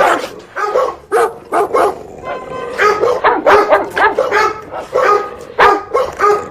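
A dog barking in quick runs of short, loud barks, several a second, with brief pauses between the runs.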